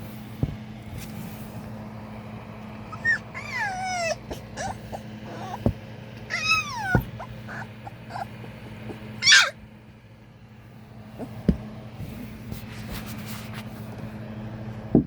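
Husky puppies whimpering: two drawn-out whines that fall in pitch, about three and six seconds in, then a short, loud yelp about nine seconds in. A steady low hum runs underneath.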